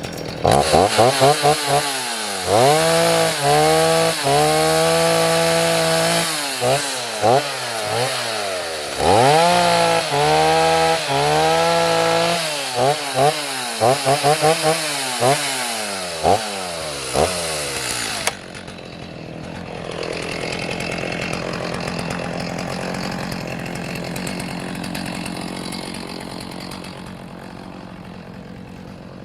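Stihl Farm Boss two-stroke chainsaw revving up and down over and over, holding high revs in between, as it trims branch stubs off a log. About two thirds of the way through it stops suddenly, and a lower steady engine hum remains.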